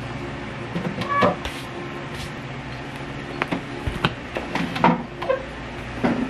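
Scattered clicks and knocks of a tablet in a hard cover and books being handled and set down on a table, over a steady low hum.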